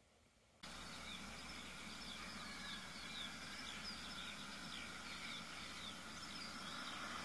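Stainless steel steam juicer heating grapes on a stovetop: a faint steady hiss with many quick high chirps and ticks, starting abruptly under a second in.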